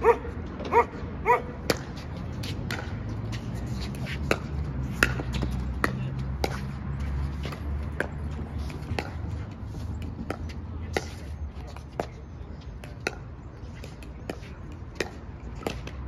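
A dog barks three times right at the start. Then a pickleball rally: a long run of sharp pops as paddles strike the plastic ball, roughly once or twice a second, over a low steady rumble.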